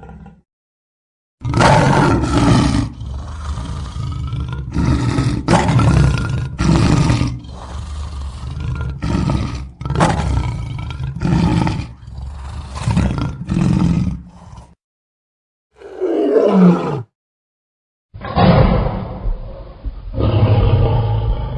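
Animal roaring in three edited clips: a long run of repeated roars, then a single call that falls steeply in pitch about 16 seconds in, then more roars near the end.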